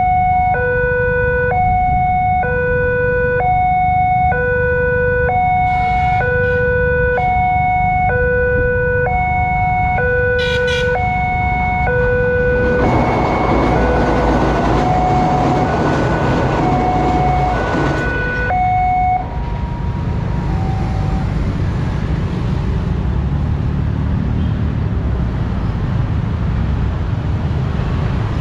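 Railway level-crossing alarm: an electronic two-tone signal alternating between a high and a low note about once a second, warning of an approaching train. Midway a passenger train runs across the steel bridge with a loud rushing rattle. The alarm then cuts off, leaving the hum of waiting motorcycle and car traffic.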